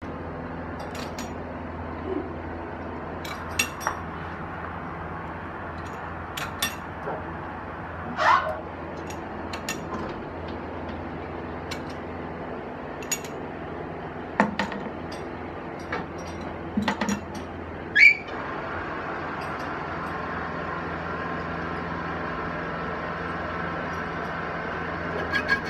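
Steady machine hum of a lathe running, with scattered metallic clinks and taps of tools and metal parts and a few louder ringing clanks. The hum grows a little louder in the last few seconds.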